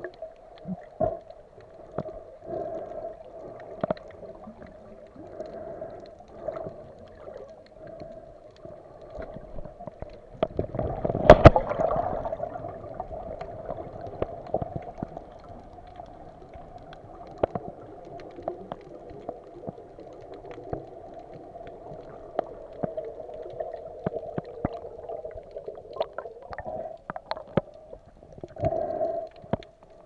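Muffled underwater sound picked up by a submerged camera: gurgling water with scattered clicks, and one loud knock about eleven seconds in.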